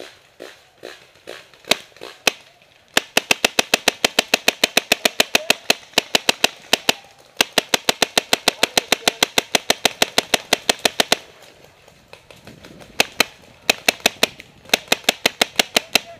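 Paintball markers firing in fast strings of sharp shots, roughly eight to ten a second, in two long bursts of about four seconds each, with shorter bursts near the end. The first few seconds hold only scattered, fainter shots.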